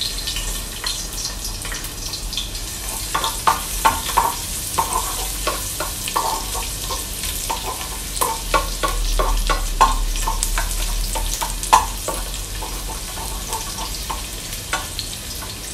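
Chopped garlic sizzling in hot oil in a pot, with a cooking spoon scraping and knocking against the pot as it is stirred, the knocks coming thickest through the middle.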